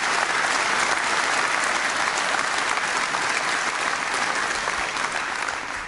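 Audience applauding, holding steady and then dying away near the end.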